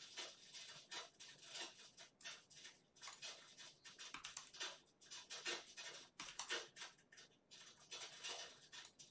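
Faint, irregular clicking of a computer keyboard being typed on, a few keystrokes a second with short pauses.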